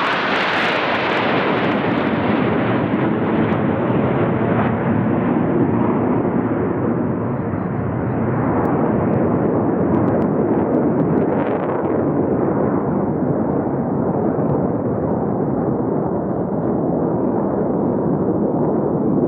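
Jet engines of a formation of military jets passing overhead: a loud, continuous rush of engine noise with a deep rumble under it, growing gradually duller over the stretch.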